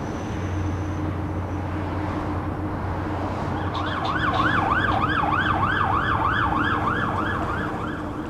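Steady low city traffic hum, then about three and a half seconds in an emergency vehicle siren starts, its pitch sweeping quickly up and down about three times a second, and the overall sound grows louder.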